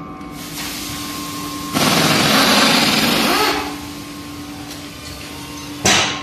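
A pneumatic tool at a tyre-fitting bay gives one burst of compressed-air noise, about two seconds long, over a steady hum. A single sharp knock follows near the end.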